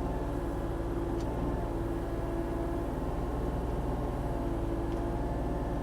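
Volvo ECR40D compact excavator's diesel engine running steadily.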